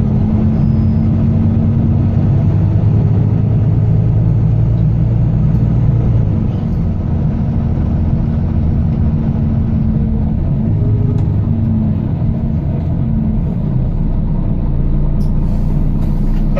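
Volvo B9TL double-decker bus's diesel engine running under way, heard from inside the bus: a steady low drone that eases off about six seconds in and picks up again around eleven seconds.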